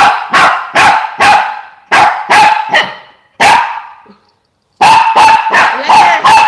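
A small dog barking repeatedly with sharp, high-pitched barks, each one echoing in the room: a group of four, a pause, three more and a single bark, then a faster run of barks near the end.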